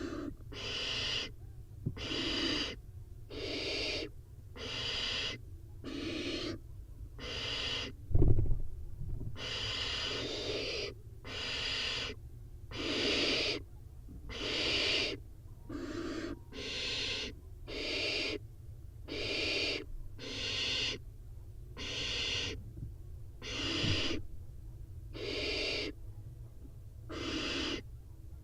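Barn owl nestlings' rasping, hissing begging calls, repeated about once a second, over a low steady hum. A sharp thump about eight seconds in, and a fainter one near the end.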